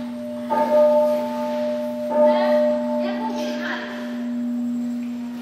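A large pagoda bell struck twice, about a second and a half apart. Each stroke adds bright ringing over a deep hum that keeps sounding between the strokes.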